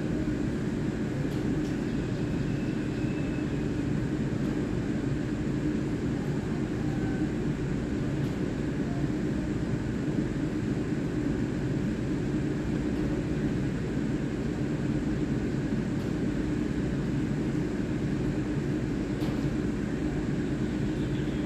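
EMU3000 electric multiple unit standing at the platform with a steady hum. A constant low tone is held throughout.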